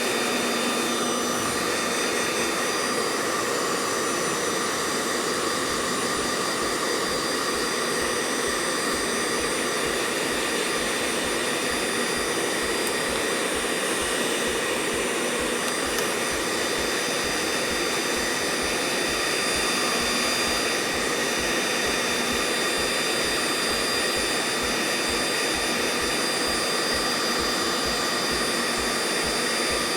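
A motor-driven blower running steadily with an even rushing sound and several steady high whining tones. It cuts off abruptly at the very end.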